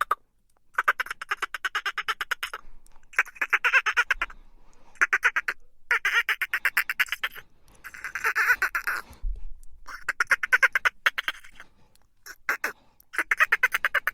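Dolphin burst-pulse calls: a series of rapid pulse trains, each lasting about half a second to two seconds, with short pauses between them, giving a quacking, chattering sound.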